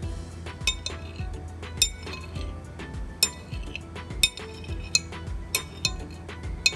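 Metal spoon clinking and scraping against a ceramic plate while pushing through a dab of plum jam in a plate test for set: sharp clinks with a short ring, about one every second or so.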